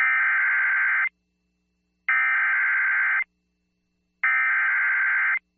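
Emergency Alert System SAME header: three bursts of shrill digital data tones, each about a second long with about a second's gap between them, encoding a severe thunderstorm warning at the start of the alert.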